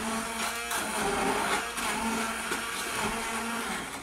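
Handheld immersion blender running on its medium setting, submerged in a saucepan of simmering whole peeled tomatoes and pureeing them into sauce. It is a steady motor hum under a gritty whir of liquid being churned, and it stops right at the end.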